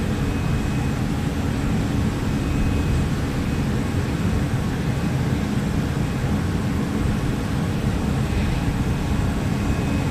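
Steady jet aircraft noise on an airport apron: an even low-heavy rush with a faint high whine, holding level throughout.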